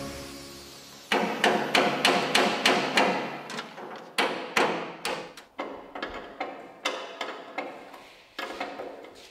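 Quick repeated hammer blows, about three a second, each with a short ringing after it, growing fainter toward the end.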